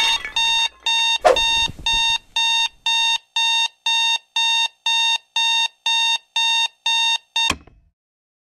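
Digital alarm clock beeping, an even electronic beep about twice a second. There is a short knock about a second in, and the beeping stops suddenly with a click near the end.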